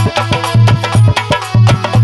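Instrumental Indian folk music: a fast hand-drum rhythm of sharp high strikes and deep ringing bass strokes, with a melody played over it.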